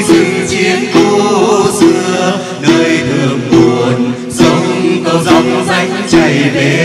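Hát then music: the đàn tính, the long-necked Tày gourd lute, is plucked in a steady beat while voices sing over it.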